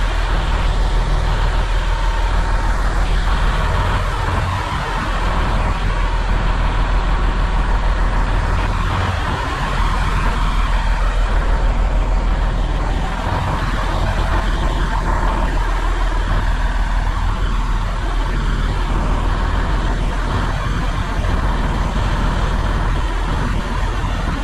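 Semi-truck diesel engine idling, a steady low rumble.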